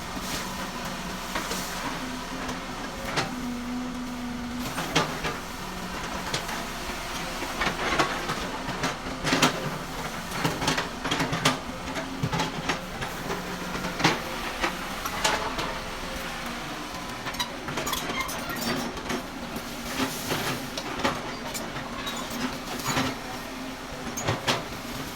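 Excavator engine running steadily, with irregular metallic clanks and knocks from the machine working.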